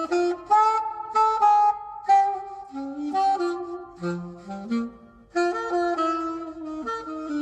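Recorded music: the instrumental break of a slow ballad, a solo melody of held notes over chords.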